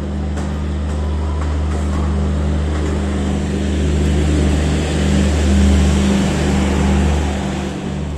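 Garib Rath AC coaches rolling past along the platform as the train pulls out: a steady rumble with a low hum underneath. It swells a little past the middle and eases near the end as the last coach goes by.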